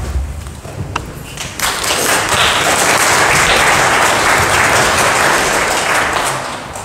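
Congregation applauding. The clapping starts about a second and a half in, holds steady, and fades out near the end.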